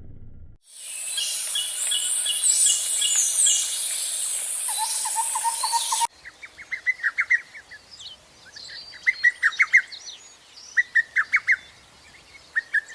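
Birds chirping and calling, many high chirps overlapping at first. About six seconds in the sound changes abruptly to short, rapid trills repeated in separate bursts.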